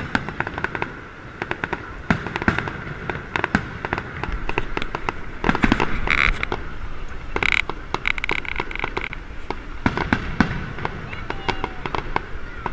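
Aerial fireworks shells bursting overhead with dense crackling and popping, many sharp reports in quick succession.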